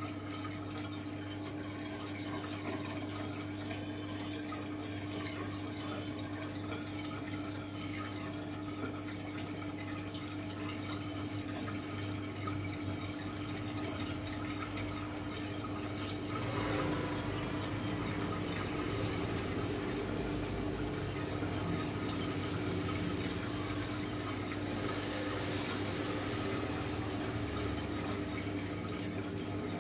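Saltwater aquarium's water circulation: water trickling and splashing steadily over a constant low pump hum, a little louder from about halfway through.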